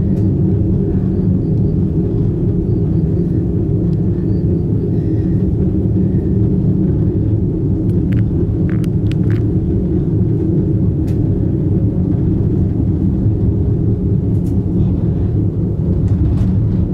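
Steady low rumble inside an aerial ropeway cabin as it travels along its haul cables, with a few faint clicks about eight to nine seconds in.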